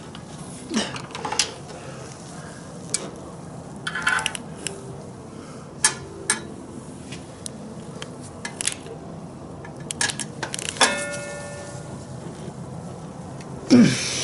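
Metal hand tools clinking and clicking against motorcycle parts during reassembly: scattered sharp clicks and clanks at irregular intervals, with a short squeak about eleven seconds in.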